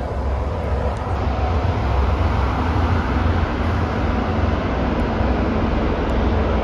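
MBTA commuter rail diesel locomotive running as its train moves along the station platform: a steady, loud low engine rumble under the broad noise of the train.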